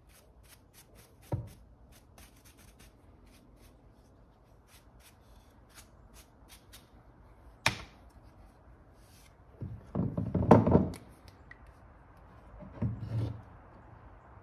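Deer antlers being handled and worked with a small hand tool on a wooden workbench: a single knock, a sharp click, then a run of scraping and knocking about ten seconds in and a shorter one near the end.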